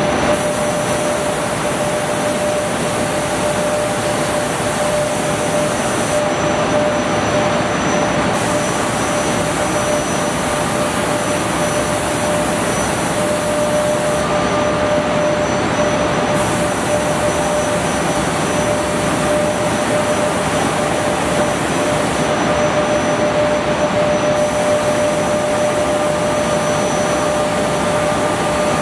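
Pull-up diaper production machine running on a trial run: a loud, steady mechanical din with a constant whine through it. A high hiss drops away for about two seconds roughly every eight seconds.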